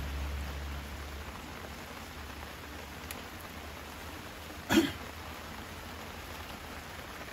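Steady rain falling around the campsite, a soft even hiss. A low rumble dies away about a second in, and one short sharp sound, the loudest thing here, comes just past the middle.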